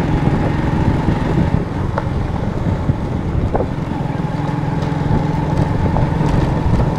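Motorcycle engine running at a steady pitch while riding along a dirt track, with wind on the microphone and a couple of light knocks.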